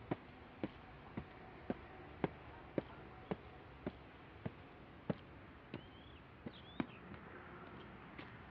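Footsteps on stone steps: sharp, evenly spaced steps about two a second that stop about seven seconds in.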